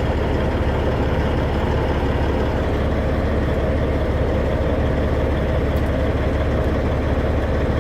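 Freightliner Classic semi truck's diesel engine running with a steady, even drone.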